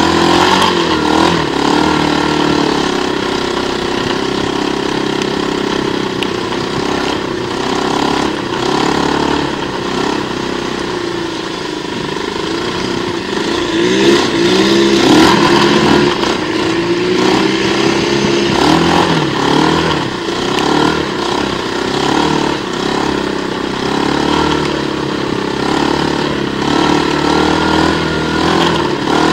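Quad bike engine running and revving, its pitch rising and falling again and again, loudest around the middle.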